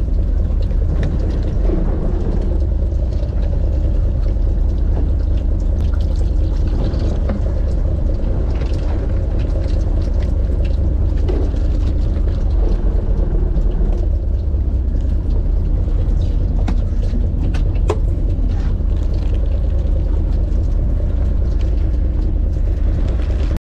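Steady low rumble of a small fishing boat under way, engine and wind drone, with faint crinkling clicks of a plastic zip-lock bag being handled.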